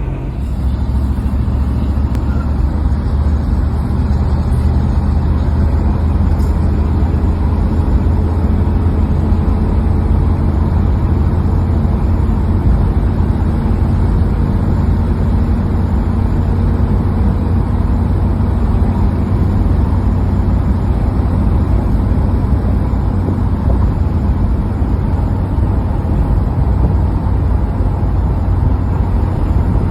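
A car or truck running at steady highway speed: a constant low engine drone mixed with tyre and road noise.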